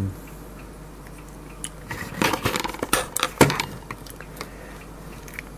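Handling noise from a Parkside digital multimeter and its crocodile-clip test leads as they are picked up: a cluster of plastic clicks and knocks from about two seconds in, ending with the sharpest knock about three and a half seconds in.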